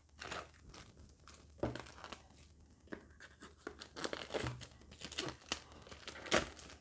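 The packaging of a Samsung Galaxy Note 10 box being torn and pulled open by hand: irregular tearing and crinkling with scattered small clicks, busiest in the second half.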